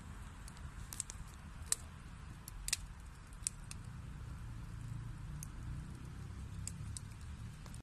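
Wood fire burning in a fireplace: a steady low rumble with scattered sharp crackles and pops from the burning wood, the clearest few in the first half.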